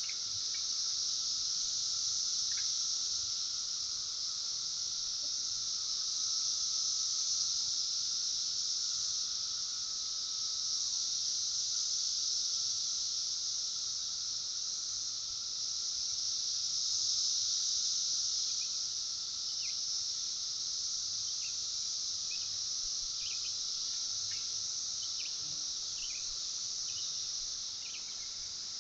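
Steady high-pitched chorus of insects, with a fainter lower drone beneath it and a few short, faint chirps in the second half.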